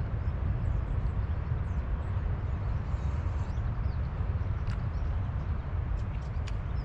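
Outdoor ambience: a steady low rumble with faint high chirps, and a few sharp clicks in the second half.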